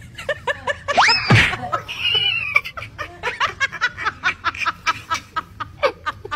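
A person laughing hard in quick repeated bursts. About a second in, a high squeal rises and then drops steeply.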